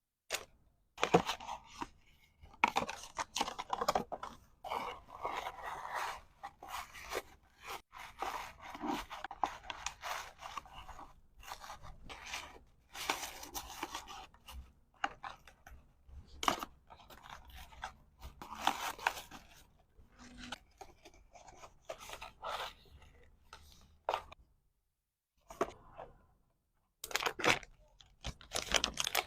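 Packaging being handled up close: irregular rustling, scraping and tearing of packaging material, punctuated by sharp clicks and taps, with a short pause near the end.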